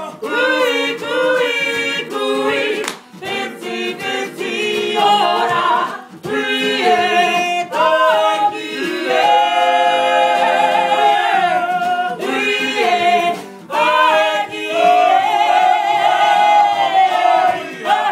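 Group of Māori performers, men's and women's voices together, singing in unison with long held notes and short breaks between phrases.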